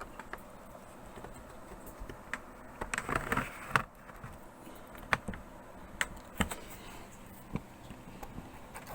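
Plastic bottom case of a laptop being pried open with a thin homemade pry tool: scattered sharp clicks as the case's retaining clips snap loose, with a short stretch of scraping and clicking a little after three seconds in.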